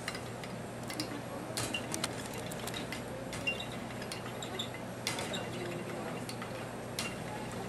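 A fork beating raw eggs in a glass baking dish, with irregular sharp clinks of the fork against the glass. A steady low hum runs underneath.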